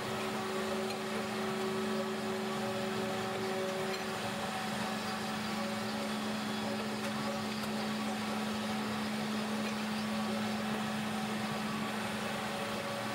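Steady hum of workshop machinery running, with a constant low drone and even hiss.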